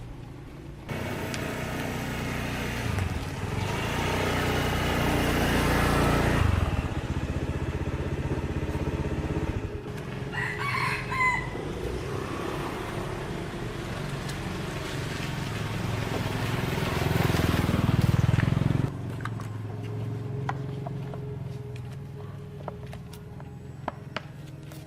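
A small engine running, swelling louder twice and cutting off suddenly about 19 s in. A rooster crows once about 10 s in, and a few faint clicks follow after the engine stops.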